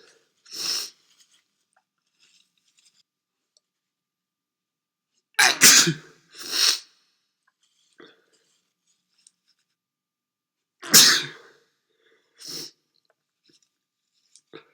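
A man with a cold sneezing loudly twice, about five seconds apart, each sneeze followed by a quieter short burst.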